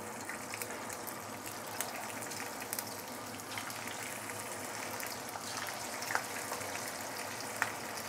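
Grouper chunks coated in cornstarch deep-frying in hot oil in a wok: a steady sizzle with a few small pops. The oil is not spitting, because the cornstarch has soaked up the water on the fish.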